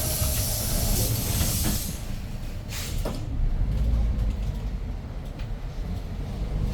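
Compressed air hissing from a Hyundai New Super Aerocity city bus's pneumatic system: a long release, then a short second burst about three seconds in. The bus's engine rumbles low underneath and grows louder near the middle.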